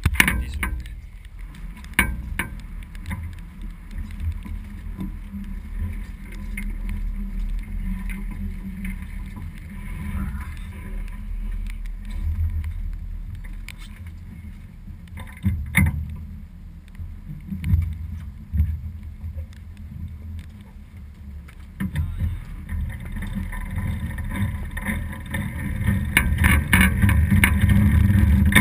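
Sailboat under way under sail: a gusty, low rumble of wind and water, with occasional sharp knocks, growing louder near the end.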